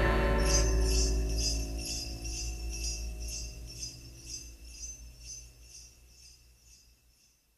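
Sleigh bells shaken in a steady beat, about two shakes a second, over a held low note at the close of a song, the whole fading out to silence near the end.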